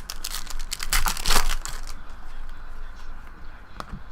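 Foil trading-card pack wrapper crinkling and tearing as it is opened by hand. The rustling is loudest in the first couple of seconds, then quieter handling follows.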